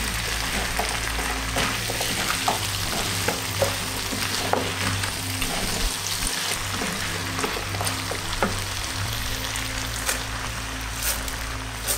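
Diced sweet potatoes and bell peppers sizzling in a pot while being stirred with a spatula: a steady frying hiss broken by short scrapes and clicks of the spatula against the pot.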